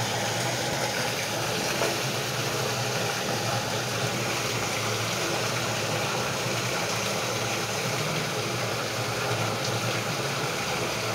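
Steady running hum of the pumps in a sump pit, mixed with rushing water noise, even in level throughout.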